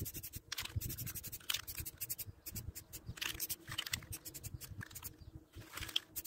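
Aerosol can of Rust-Oleum 2X plastic spray paint spraying in a series of short bursts, with gaps between them.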